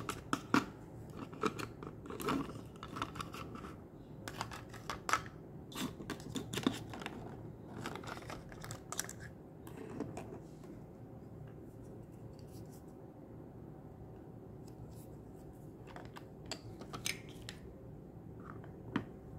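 Small plastic toy-kitchen pieces being handled: light clicks, taps and clatter as a toy spatula, toy food, a plate and a pot lid knock against a plastic pan and stove. The taps come thick and fast in the first ten seconds, then thin out to a few near the end.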